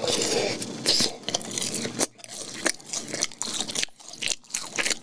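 Close-miked crunching bites and chewing of crispy boneless fried chicken, an irregular run of sharp crunches.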